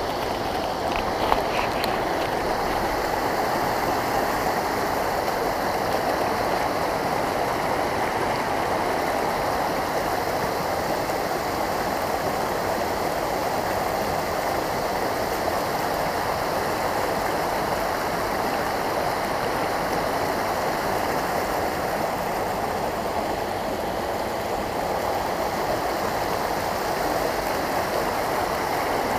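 Shallow, rocky mountain stream running over stones in small cascades: a steady, unbroken rush of water.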